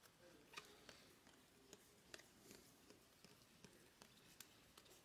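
Near silence with faint, scattered clicks of baseball trading cards being handled and flipped through in a stack.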